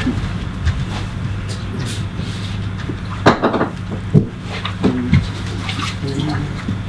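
Steady low mechanical hum, with a few scattered knocks and clatters, the loudest about three seconds in.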